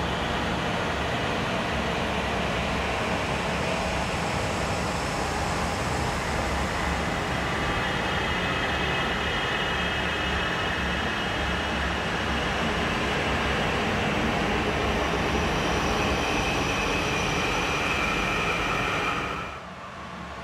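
Steady rushing noise with faint high whining tones added in the second half. It drops away suddenly about a second before the end.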